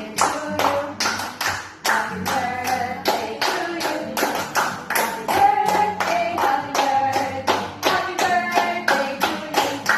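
Voices singing a tune over steady rhythmic hand claps, about three claps a second.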